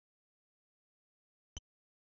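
Near silence with a single short click about one and a half seconds in.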